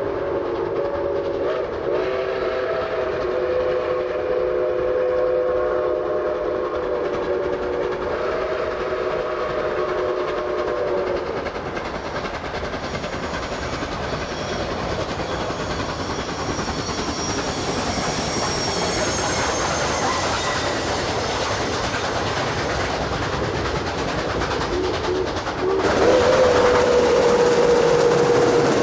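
Steam locomotive whistle blowing a long chord of several notes for about ten seconds, then the steam train's running noise and rail clatter as it comes on. Near the end a louder single-note steam whistle sounds.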